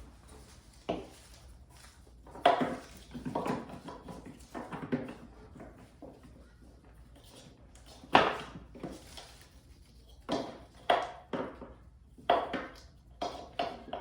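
Irregular metallic clinks and knocks of cam-buckle straps and hooks being handled and fastened to the loops on roof crossbars, a dozen or so sharp strikes with quieter rustling between them.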